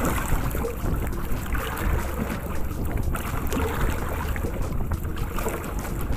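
Wind rumbling on the microphone over the steady wash of choppy sea around a small outrigger boat.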